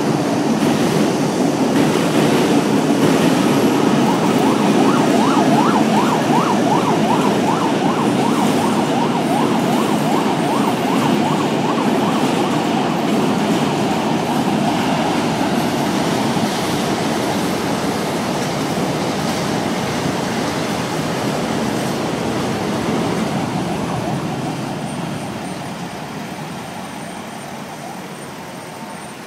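Trains rumbling across a steel girder railway bridge, mixed with busy road traffic below. The loudest stretch comes first as a high-speed train passes, with a rapid run of short rising whistle-like chirps in the middle. The sound fades over the last several seconds.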